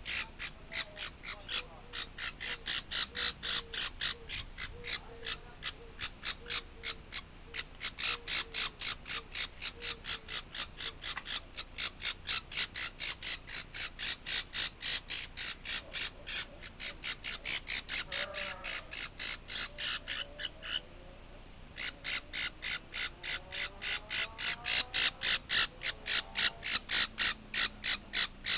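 Baby parrot chick calling in rapid, evenly spaced harsh cheeps, roughly five a second. They break off for about a second about three-quarters of the way through, then start again.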